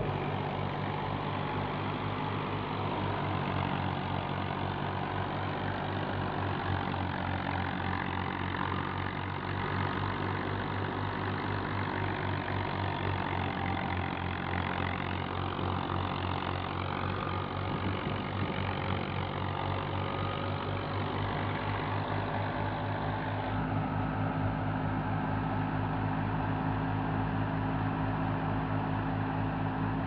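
Fiat 480 tractor's three-cylinder diesel engine running steadily under load, driving a wheat thresher through a shaft, mixed with the noise of the threshing machine. The engine note shifts a little about two-thirds of the way through.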